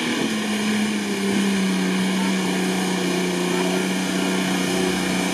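UAZ 4x4's engine running at steady revs under load as it drives through deep swamp mud, the note dipping slightly at the start and then holding steady.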